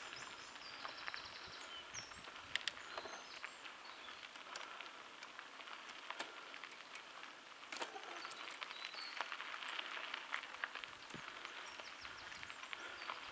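Crunching on a gravel forest trail, with many small sharp clicks and rattles, and birds chirping in the first two seconds or so.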